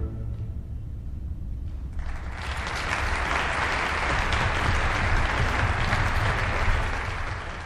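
Audience applauding, starting about two seconds in over a low hall rumble and fading away near the end.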